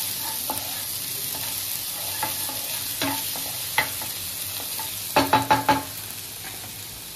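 Chopped ginger and garlic sizzling in hot oil in a frying pan, stirred and scraped with a wooden spatula. About five seconds in, four quick ringing knocks of the spatula on the pan.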